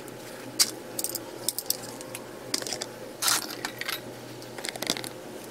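Light metallic clinks and taps as steel brake parts and hand tools are handled and set down, with a few louder knocks, the loudest about three seconds in.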